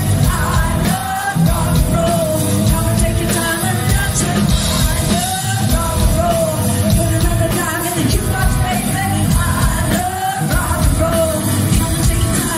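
A live pop-rock song with a woman singing lead into a microphone over loud amplified backing music.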